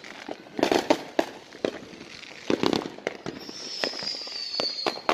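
Neighbourhood fireworks going off: a string of sharp bangs and crackles in clusters. Past the middle comes a high whistle that slowly falls in pitch for about a second and a half.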